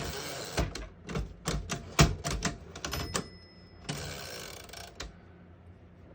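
1912 Underwood No.5 manual typewriter being worked: the carriage slides with a rattle, a quick run of sharp mechanical clacks follows, then a short ring about three seconds in and another sliding rattle of the carriage.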